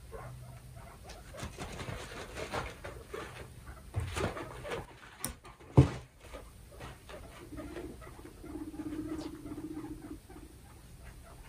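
Two guinea pigs fighting for dominance: scrabbling, pattering feet and quick clicks, with one sharp thump just under six seconds in. Near the end comes a low steady rumble lasting a couple of seconds, the rumbling call that guinea pigs make in a dominance display.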